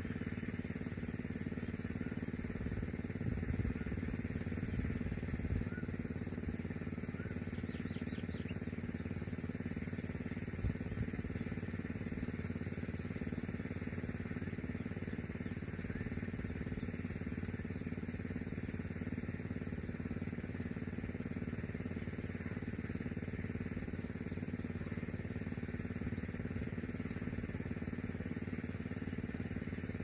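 Steady low mechanical hum, like an engine running, with a few faint knocks in the first dozen seconds.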